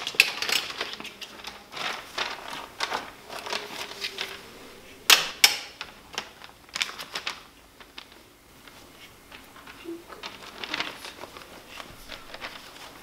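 Clothes hangers clacking against a metal clothing rail, with fabric and paper rustling, as garments and fabric swatches are pushed along and pulled off the rack. Clicks come thick in the first half, with two sharper clacks about five seconds in, and thin out toward the end.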